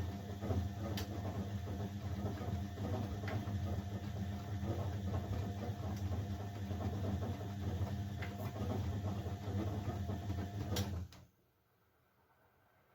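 Old Blomberg 240W washing machine running its motor to turn the drum, a steady low hum with a light click about every two and a half seconds. The motor stops abruptly about eleven seconds in, as in the pause between drum turns during a wash.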